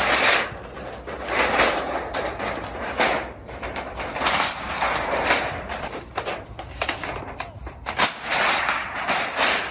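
Thin titanium sheet of a roll-up wood-stove flue pipe crinkling and rattling as it is bent and rolled by hand, in repeated swells of metallic rustle, with a few sharp crackles in the second half.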